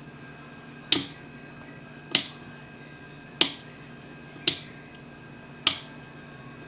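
Five sharp clicks at an even pace, about one every 1.2 seconds, over a faint steady electrical hum.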